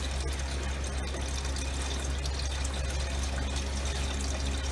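Lobster stock pouring in a thin, steady stream through a fine-mesh tea strainer into a pot of roux.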